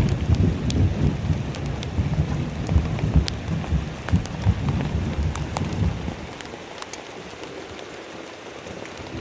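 Heavy rain falling steadily, with close drops ticking sharply. A deep rolling rumble of thunder fades out about two-thirds of the way through, leaving only the rain.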